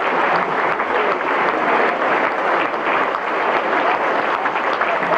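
Large theatre audience applauding steadily, a dense crackle of many hands clapping at once.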